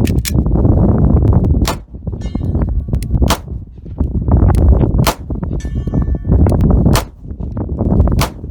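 Taurus .44 Magnum revolver fired six times, about one shot every one and a half seconds, at an AR500 steel plate around 100 yards off. Some hits come back as a thin metallic ring from the steel about half a second after the shot. A continuous low rumble runs underneath.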